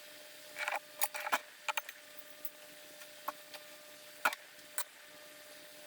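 A scattering of small, sharp clicks and ticks at irregular intervals over a faint steady hum, the loudest a little past four seconds in.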